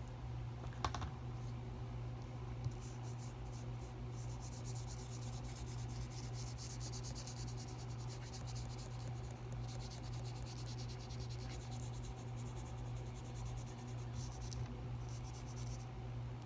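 Large paintbrush stroking and rubbing across thick watercolor paper in long scratchy passes, with short pauses between them, over a steady low hum. A brief click about a second in.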